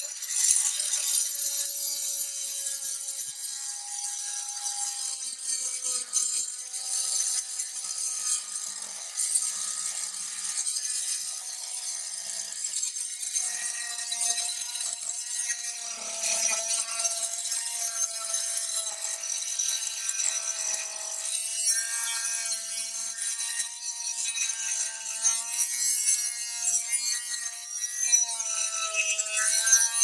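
Fein first-generation Multimaster oscillating multi-tool cutting a steel 3/8-inch threaded rod with an aftermarket metal-cutting blade: a steady raspy grinding hiss over a motor whine that wavers in pitch as the load changes. The blade is struggling with the thick rod, cutting slowly.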